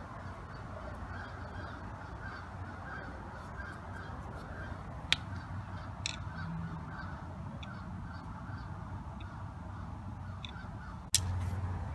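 Faint background calls of birds over a low steady hum, with a sharp click about five seconds in and another, louder click near the end.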